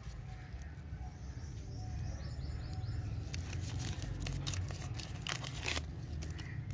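A plastic lollipop wrapper crinkling and tearing as it is twisted and peeled off by hand, the crackles coming in the middle and latter part, over a steady low rumble.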